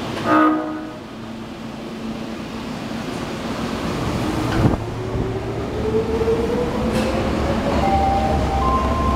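Osaka Municipal Subway 30 series train sounding its horn, which has an abnormal, off-sounding tone, in one short blast about half a second in. The train then pulls away with a motor whine rising steadily in pitch.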